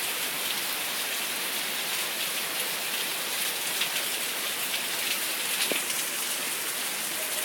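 Heavy rain falling steadily, with separate drops hitting close by.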